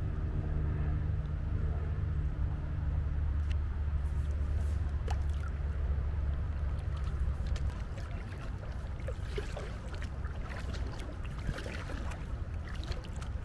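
A low, steady engine-like drone that drops away about seven or eight seconds in. Scattered light water splashes and drips from kayak paddling follow in the second half.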